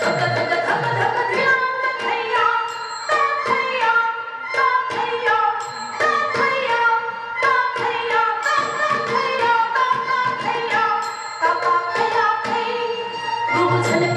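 Indian classical dance music: a stepping melody over a steady drone, with quick drum strokes.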